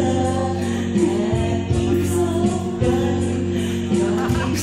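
A man sings into a microphone over instrumental backing music with sustained chords, his voice amplified through a PA system.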